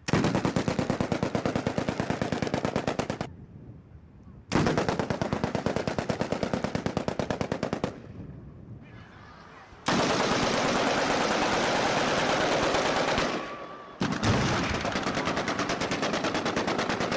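Long bursts of rapid automatic machine-gun fire, four bursts that each start suddenly and run for three to four seconds; the third is a faster, denser rattle.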